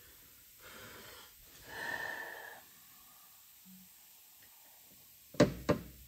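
A short breathy blow of air about two seconds in, then two sharp knocks near the end as metal is struck at the aluminium sump cover of a Briggs & Stratton engine.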